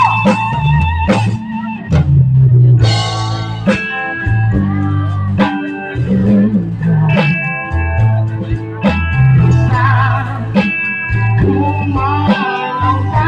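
A live band plays an instrumental passage: an electric guitar lead with bent, wavering notes over bass guitar and drums.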